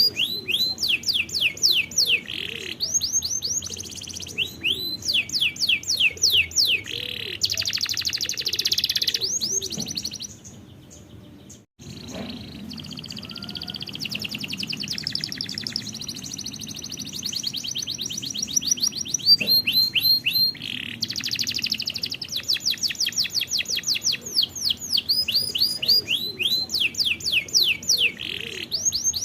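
Domestic canary singing: rolling runs of rapidly repeated falling whistled notes alternating with fast buzzy trills, broken by a short pause about ten seconds in before the song resumes.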